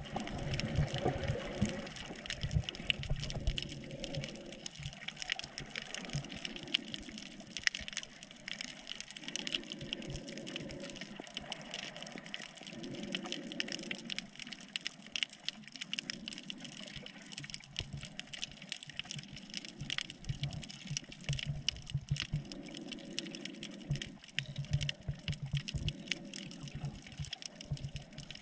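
Water moving around a GoPro camera while snorkeling, heard as a steady wash of water noise with many small crackling clicks.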